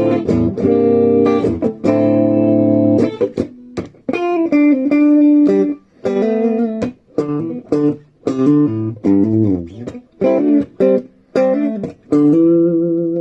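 Gibson ES-335 semi-hollow electric guitar being played after its headstock repair: chords and short single-note phrases with brief pauses, ending on a held chord that rings out near the end.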